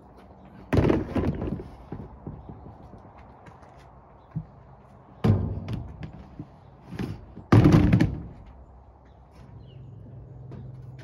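Gear being loaded onto a truck canopy's metal roof basket: three loud thunks with short rattles, about a second in, about five seconds in and just before eight seconds, as a plastic fishing-rod holder tube and a plastic storage tote are set down and shoved into place, with smaller knocks between them.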